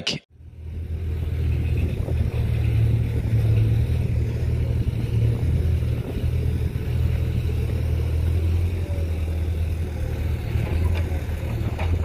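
Wind buffeting the microphone: a steady low rumble that fades in over the first second or two.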